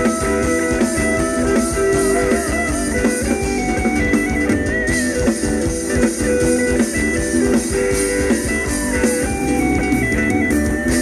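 Live band playing instrumental Thai ramwong dance music: a stepping lead melody over a steady, busy drum beat.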